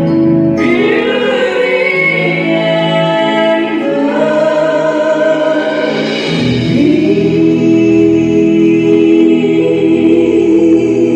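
A man and a woman singing a wedding duet into microphones, holding long notes in harmony.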